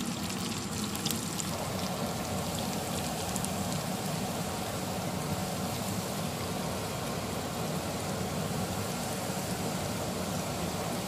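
Hot oil sizzling and bubbling steadily around flour-coated chicken pieces deep-frying in a pan.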